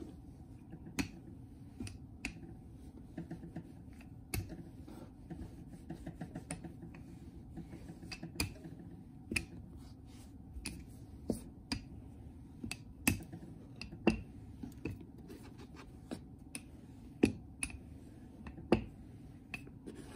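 Wooden rolling pin rolling dough flat on a plastic cutting board: irregular sharp clicks and knocks as the pin and its handles are worked back and forth, over a low steady rumble.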